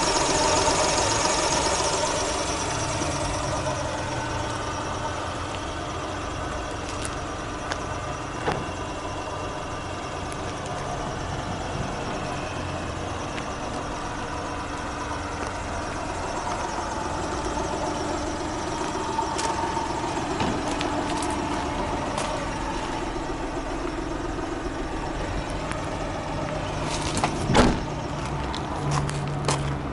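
Honda Acty kei truck's small mid-mounted engine idling steadily. A few light clicks, then a sharp thump near the end.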